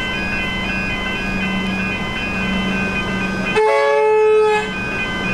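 Railway level-crossing warning bells ringing in a steady repeating pattern. About three and a half seconds in, a train horn sounds one loud blast lasting about a second.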